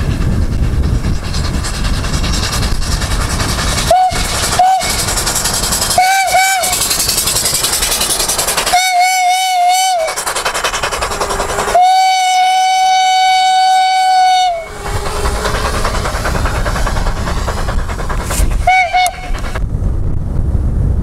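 Steam whistle of a homemade steam motorcycle, sounded in a series of short toots and one long blast of about three seconds, over steady rushing noise.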